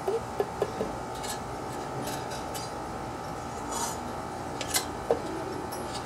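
Light metallic clinks and taps from handling the opened-up Briggs & Stratton mower engine's crankshaft and connecting rod, which is being rocked to feel for play from its worn big end. There are four quick clinks in the first second and two more near the end, with a few short scrapes between them and a steady faint hum underneath.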